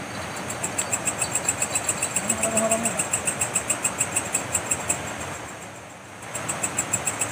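Night insect chirping in a fast, even, high-pitched pulse, about seven chirps a second. It breaks off for a moment about five and a half seconds in and then starts again.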